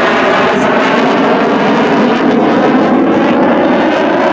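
CF-18 Hornet's twin General Electric F404 turbofans running in afterburner: loud, steady jet noise.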